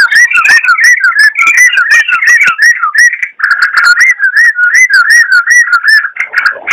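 Yellow-vented bulbul (trucukan) singing steadily: a rapid, unbroken run of short bubbling whistled notes, about four or five a second.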